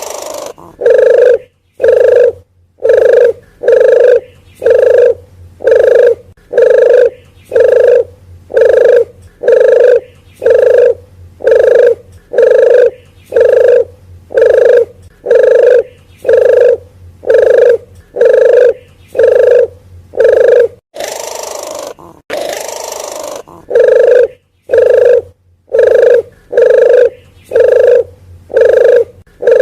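Puter geni wild dove's lure call: short cooing notes repeated steadily about once a second. The run breaks about two-thirds of the way through for a couple of seconds of hissy sound, then the cooing resumes.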